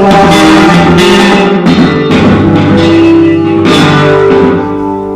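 Loud live band music during a sound check: guitar notes and chords ringing over drum hits, easing off slightly near the end.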